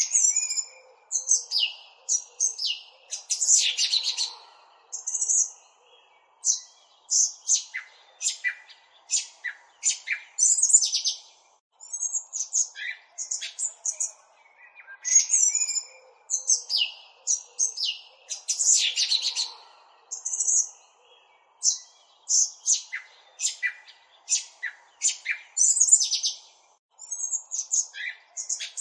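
Birds chirping: many short, quick high calls one after another, with a faint steady hiss underneath.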